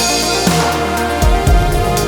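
Electronic background music with a heavy bass and a steady beat, in a dubstep style.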